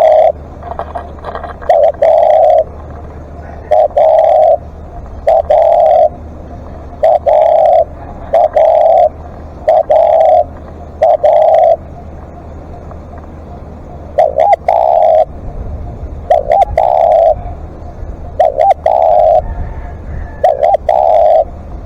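Spotted dove cooing: a long series of loud, low coo notes, each under a second, with a pause of about two seconds midway.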